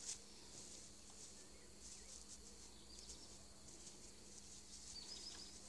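Near silence: faint outdoor background with a thin high hiss and a few soft ticks, and a brief faint high tone about five seconds in.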